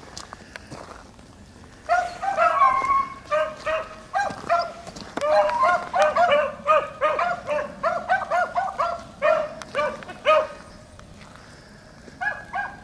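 Beagles baying in a quick run of short, pitched barks while running a rabbit's track. The baying starts about two seconds in, breaks off for a moment near the end and then picks up again.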